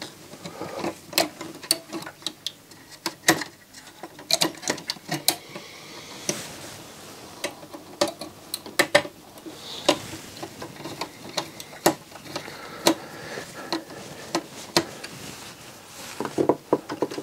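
Irregular small clicks and taps of a screwdriver turning screws into a CD player's sheet-metal chassis, with light handling of the metal parts.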